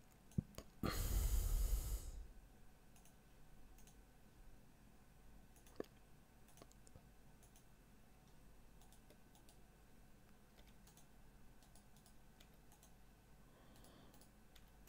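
Faint, scattered computer mouse clicks and key presses, a few sharp clicks seconds apart over low hiss, with a short burst of noise on the microphone lasting about a second, about a second in.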